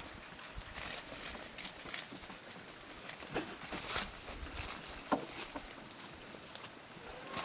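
Goats moving about on the ground, with scattered hoof steps and scuffs at an uneven pace.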